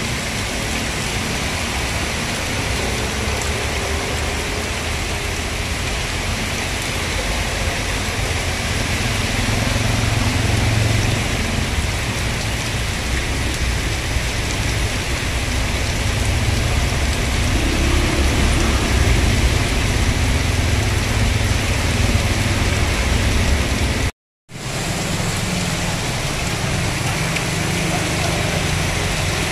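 Heavy tropical downpour hissing steadily on a flooded road, with water rushing along the curb and cars driving slowly through the floodwater, their tyres swishing and splashing. The low rumble of passing vehicles swells twice. The sound cuts out for a split second about three quarters of the way through.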